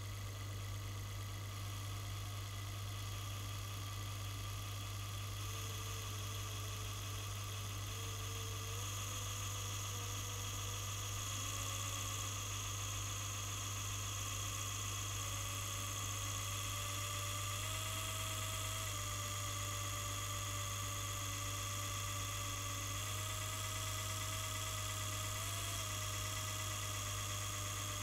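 Soma Smart Shades battery motor winding a roller blind's beaded chain to raise it slowly, on its slow, quiet setting. It makes a steady low hum with a faint whine that drifts gradually upward in pitch.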